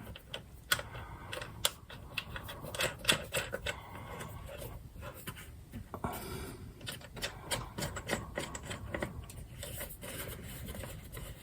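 Irregular small metal clicks and scraping as bolts and nuts are fitted back onto an air compressor by hand.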